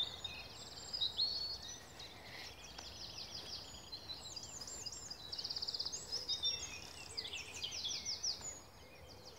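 Several songbirds singing at once in a morning chorus of overlapping chirps, whistles and rapid trills, with one loud trill about halfway through.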